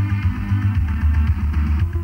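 Background rock music with guitar, a heavy bass line and a steady drum beat.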